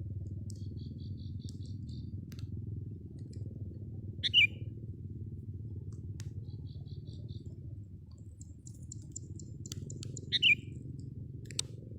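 Sooty-headed bulbul (kutilang) calls: two short, loud calls about six seconds apart, with faint quick chattering notes between them, over a steady low rumble.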